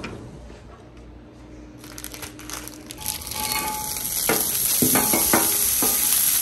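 A faint steady hum at first, then from about three seconds in a hot flat-top griddle sizzling, louder as frozen folded plant-based egg squares go onto it. A few crinkles of a plastic bag and spatula scrapes come through the sizzle near the end.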